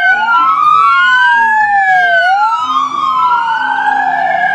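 Police car siren wailing: two tones sweeping slowly up and down and crossing each other, each sweep lasting about two seconds.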